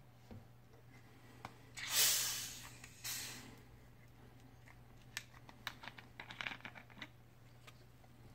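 Screw cap of a plastic cola bottle twisted open: the carbonation hisses out in one strong burst about two seconds in and a shorter one about a second later, followed by light plastic clicks and crinkles as the bottle is handled.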